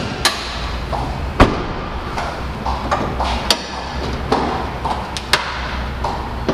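Bonnet of a Maxus T60 pickup being unlatched and opened: four sharp metallic knocks and clunks a second or two apart, one with a brief ring, over a steady low hum.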